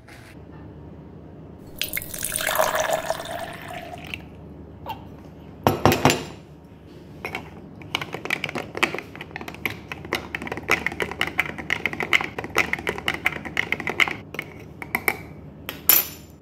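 Liquid poured into a small plastic pitcher, rising in pitch as it fills. Then a metal spoon stirs inside it, clinking against the sides in quick repeated taps for several seconds.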